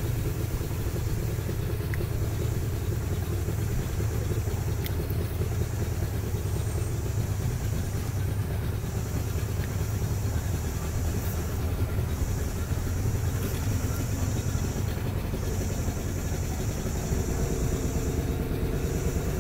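Motorized canoe's outboard engine running steadily as a low, even rumble. Above it, a high insect buzz rises and drops out in repeated spells about three seconds long.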